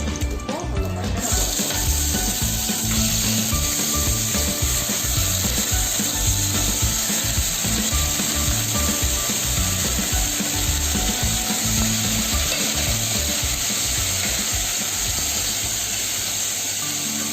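Pieces of mutton frying in hot sesame oil: a loud, steady sizzle that starts suddenly about a second in, as the meat goes into the pan.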